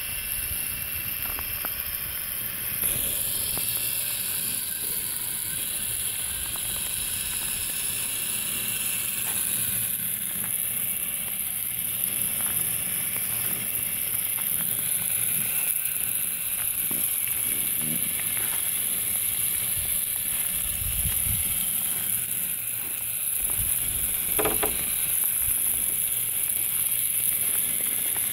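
Radio-controlled crawler truck on 3D-printed snow tracks running slowly, its electric motor and gears whirring steadily, with faint clicks from the tracks working over snow.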